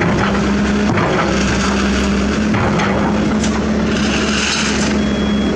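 Excavator's diesel engine running steadily while it works its bucket at a dump truck's steel body, with a few short knocks.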